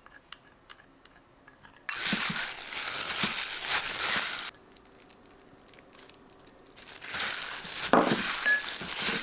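A thin plastic bag worn as a glove crinkles as a hand kneads seasoning into raw chicken tenderloins in a glass bowl, in two long spells with a quieter pause between. A few faint clicks come just before the first spell.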